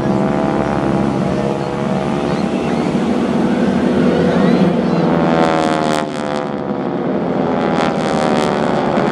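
Propeller aircraft engine running overhead in a flypast. Its many-toned drone shifts in pitch partway through as the plane passes.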